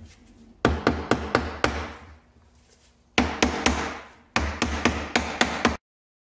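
Hammer blows knocking on a Hyundai Santa Fe transfer case to break the case halves apart: three quick runs of sharp strikes, about four a second. The sound cuts off abruptly near the end.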